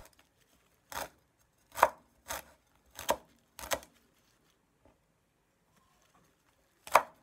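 Chinese cleaver chopping toon sprouts on a wooden cutting board: five chops about half a second to a second apart, a pause of about three seconds, then one more chop near the end.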